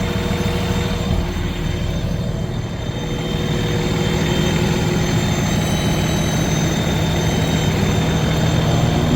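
Cummins diesel engine running with a thin, high-pitched whistling squeal over its steady drone. The owner suspects a belt, since the squeal changes in pitch.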